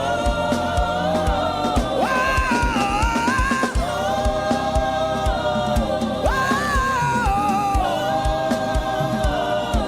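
Gospel worship music: several voices sing long held, gliding notes over a steady drum beat.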